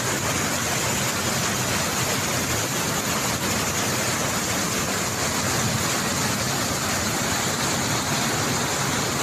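Steady rush of fast-flowing floodwater, an even roaring noise without change.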